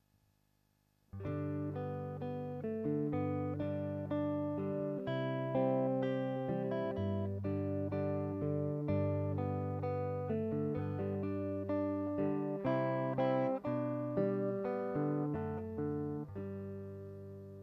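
Instrumental guitar music: plucked notes picked out one after another as a melody, starting about a second in and fading down near the end.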